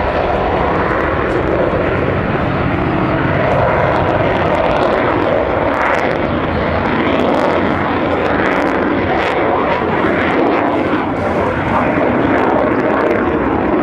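Loud, steady jet noise from a Saab JAS 39 Gripen fighter's single Volvo RM12 afterburning turbofan as the jet flies its display.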